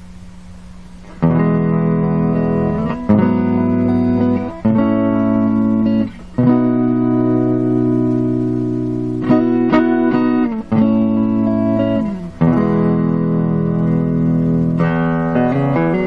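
Fender Stratocaster electric guitar played through an engaged EP Booster clone pedal into a Peavey Classic 30 valve amp on its normal channel. Strummed chords are left to ring, changing every second or two, starting about a second in. Near the end it moves to quicker single notes.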